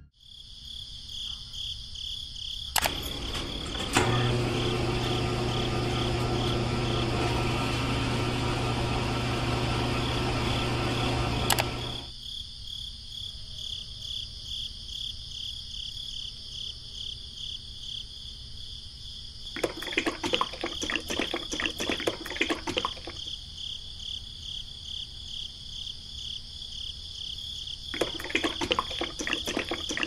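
Small electric motor of a miniature DIY concrete mixer running steadily for about eight seconds, then stopping, over a continuous chirping of crickets. Near the end come two spells of quick rattling and scraping.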